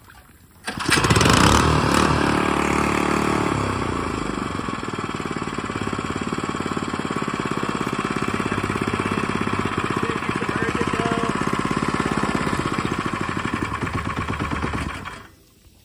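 Harbor Freight Predator 79cc single-cylinder four-stroke engine on a long-tail mud motor, pull-started and catching about a second in, loudest just after it catches. It then runs steadily for about fourteen seconds before being shut off abruptly near the end.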